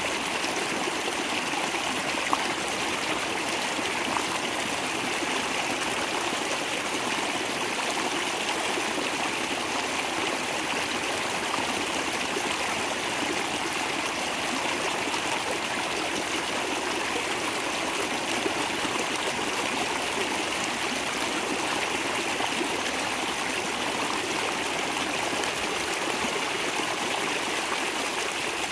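Small mountain creek swollen with rain, water rushing and splashing steadily over rocks and ledges.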